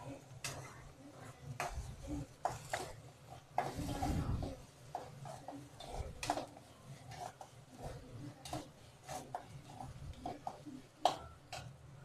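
A slotted metal spatula scraping and clinking against an aluminium kadai, stirring chopped onions and tomatoes as they sauté. The taps and scrapes come irregularly, with a longer scrape about four seconds in and a sharp clink near the end.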